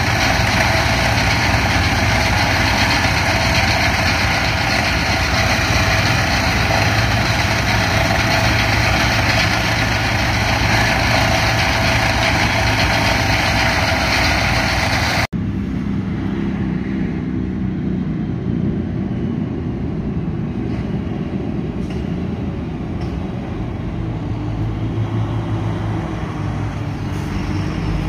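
John Deere T670i combine running while harvesting corn, a steady, dense machine drone with a constant whine. About halfway through it cuts abruptly to a quieter, lower engine rumble.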